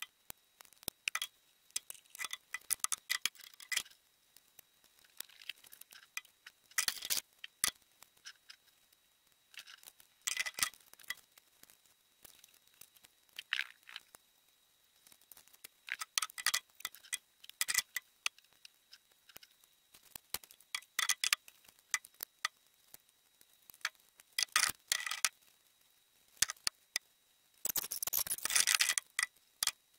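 Dry grapevines rustling and crackling in short, irregular bursts with small clicks and snaps as they are bent and woven around stick stakes into a basket. The longest and loudest rustle comes near the end.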